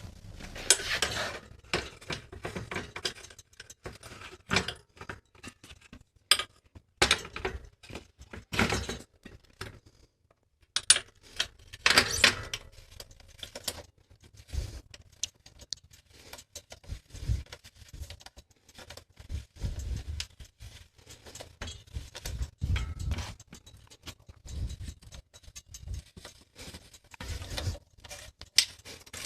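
Metal bicycle parts being handled and fitted: irregular clicks, clinks and knocks, with a few sharper strikes and some dull thumps.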